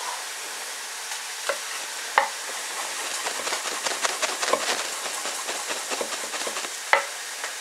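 Chicken breast sizzling steadily on a hot grill pan, with a chef's knife tapping on a wooden cutting board as a garlic clove is finely minced: a few single knocks, a run of quick light taps in the middle, and one louder knock near the end.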